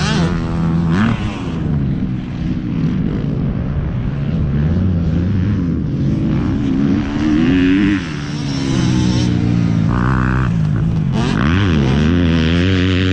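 Piranha P190 pit bike engine being ridden hard, its pitch rising and falling over and over with throttle and gear changes, under wind rush on a helmet camera.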